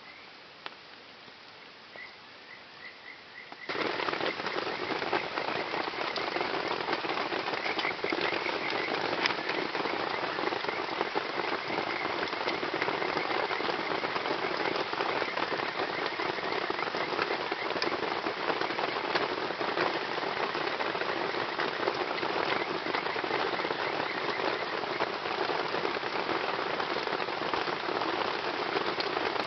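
Heavy rain falling, a dense steady patter with scattered sharper drop hits, that starts abruptly about four seconds in; before it, quiet with a few faint short chirps.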